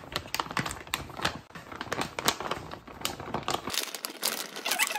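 A plastic bag of grated fondue cheese crinkling in the hands as it is handled, with many quick, irregular crackles.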